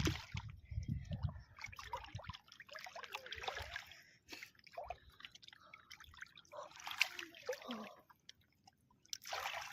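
River water splashing and trickling in irregular bursts. A low rumbling thudding runs through the first two seconds.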